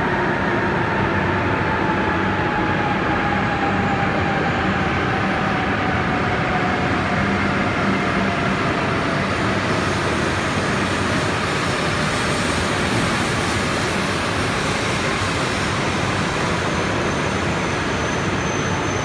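E5-series Shinkansen train running past a station platform, slowing to a stop: a steady rolling rumble with an electric motor whine that slowly falls in pitch. A thin, high squeal comes in near the end.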